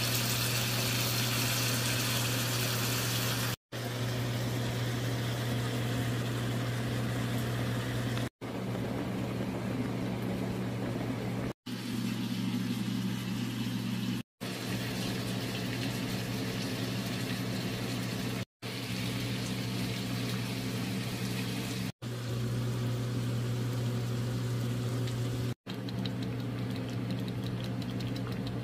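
Steady kitchen noise of stovetop cooking: a constant low hum under a hiss of food cooking in a pan and pot, cut off briefly about seven times between short clips.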